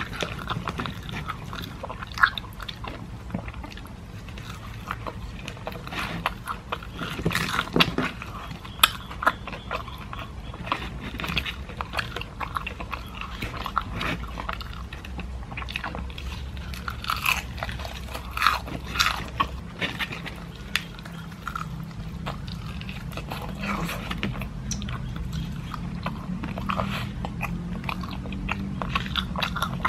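Biting and chewing crispy KFC Golden Egg Crunch fried chicken, the coating crunching and crackling in short, irregular snaps, with the chicken torn apart by hand.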